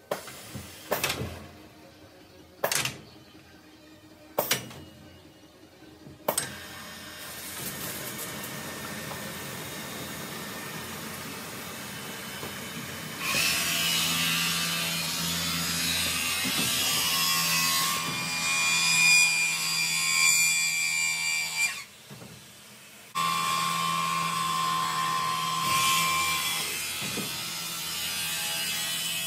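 Automated ski-service machine working a ski. Four mechanical clunks come over the first few seconds as the ski is moved into place. A steady whirr follows, then a louder hiss and whine of wet stone grinding of the ski base under water spray, which stops briefly about 22 seconds in and starts again a second later.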